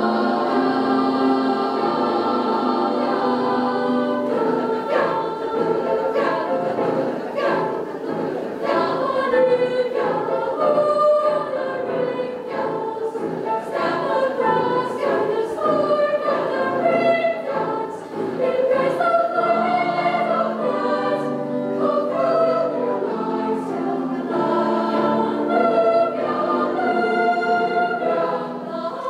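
Mixed youth choir singing in several parts, with many sharp short clicks among the voices from about four seconds in.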